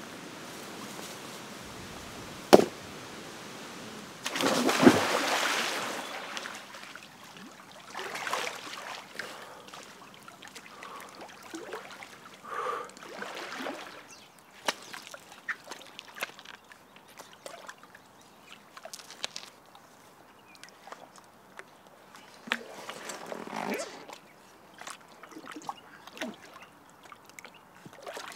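Rocks being set on the rim of a lined pond: a sharp stone knock about two and a half seconds in, then a big splash of water. After that, pond water sloshes and splashes around someone wading, with small knocks of rock as stones are pushed into place.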